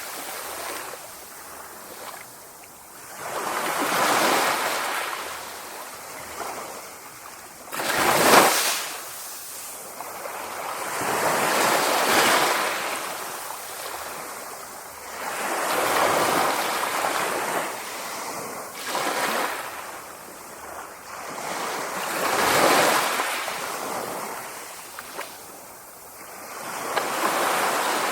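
Sea waves washing in, each swell of surf rising and falling off about every four seconds, with one sharper, louder wave about eight seconds in.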